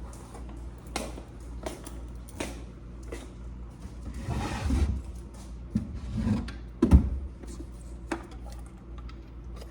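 Things being handled at close range: scattered light knocks and clicks with rubbing and rustling, and a louder thump about seven seconds in.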